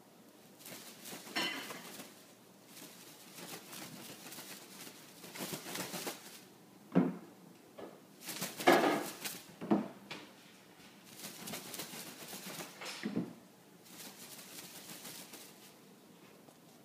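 Bengal kitten leaping about on a hardwood floor: paws scrabbling and skittering, with a few thuds of landings in the middle, the loudest about nine seconds in.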